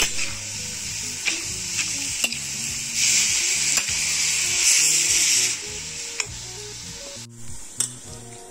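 Grated white radish sizzling as it stir-fries in an oiled metal pan, stirred and scraped with a metal spatula that clicks against the pan. The sizzle swells in the middle and dies down over the last few seconds.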